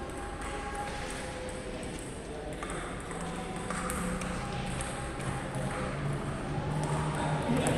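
Table tennis balls clicking at irregular intervals as they strike bats and tables during rallies at several tables.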